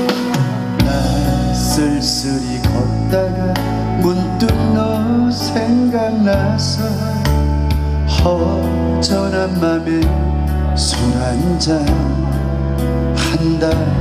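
A man singing a slow Korean ballad into a microphone, amplified through a PA, over a recorded backing track with a steady bass line.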